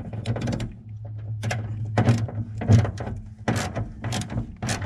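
Ratchet tightening a bolt on the window track inside a Honda Civic door: a run of short, sharp clicking strokes, about two a second.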